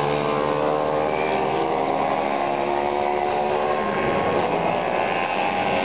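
Small-displacement underbone racing motorcycles running hard around the circuit, several engine notes overlapping and rising and falling in pitch as the bikes pass.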